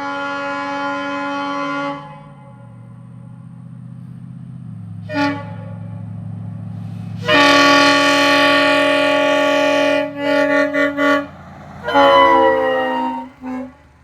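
Locomotive air horns blasting chords: a blast of about two seconds, a short toot, a longer blast of nearly three seconds breaking into a quick run of short toots, then a final blast whose chord sags in pitch, and one last short toot. A low steady hum runs underneath, stepping down in pitch between the first two blasts.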